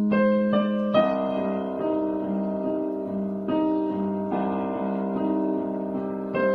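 Background music: gentle piano or electric piano playing slow held chords.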